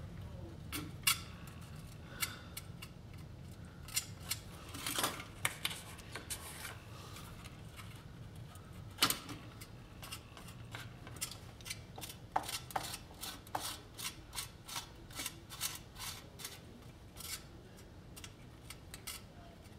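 Irregular small clicks and scrapes of a hand tool against the thin tin body of a toy car as two-part epoxy filler is spread into a dent. The clicks come closer together in the second half.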